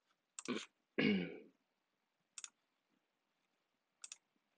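Computer mouse clicking in quick pairs a few times, and about a second in a person clears their throat.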